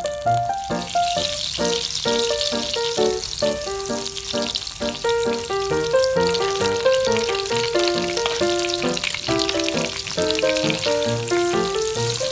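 Margarine sizzling and crackling as it melts and fries in a nonstick pan, starting up about a second in, over background music.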